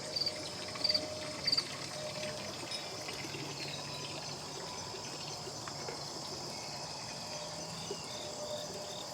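Insects chirping steadily in a high, even chorus, with a sharp double chirp repeating about every half second during the first second and a half.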